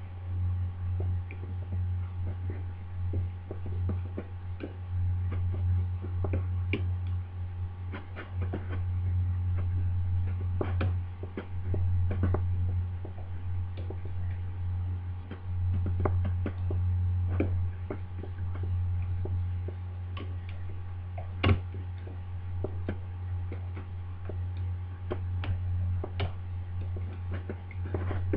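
Lever-lock pick working inside a Union 5-lever British Standard deadlock, lifting the levers with small, irregular clicks and taps, one sharper click about two-thirds of the way through. A steady low hum runs underneath.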